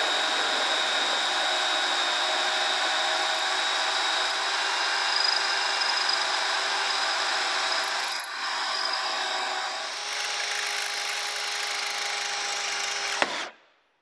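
Cordless battery drill running steadily under load as it bores the hole for a safety bolt through a truck-camper jack leg, with a steady motor whine; the drilling stops abruptly near the end.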